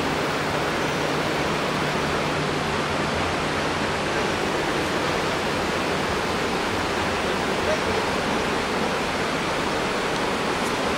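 Steady roar of rushing water, an even, unbroken noise without rhythm.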